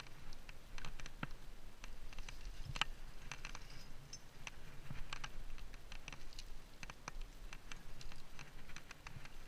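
Irregular small clicks, taps and scrapes of a rock climber moving up a slab: hands and rock shoes on the rock and climbing gear clinking on the harness.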